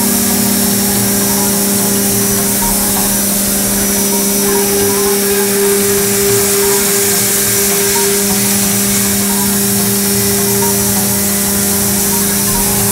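Haas VM-3 CNC mill end-milling a billet aluminum motorcycle wheel under flood coolant: a steady, even cutting tone over a constant hiss of coolant spray.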